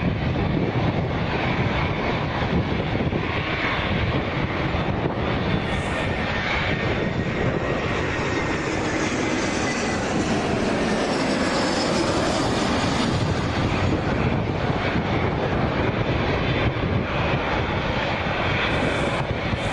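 Boeing 787 Dreamliner's twin turbofan engines running at low thrust as the airliner taxis and turns: a steady rush of jet noise with a faint whine riding on top.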